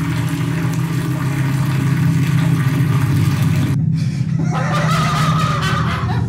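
Loud, low droning rumble under a steady hiss. About four seconds in, the hiss drops away and a wavering higher tone sounds over the drone.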